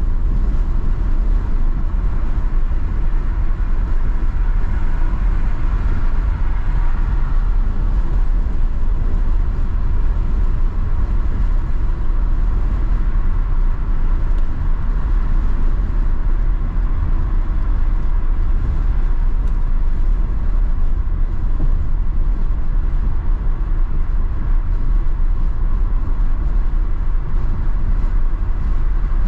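Steady road noise of a car cruising at highway speed, heard from inside the cabin: an even, deep hum of tyres and engine that holds unchanged throughout.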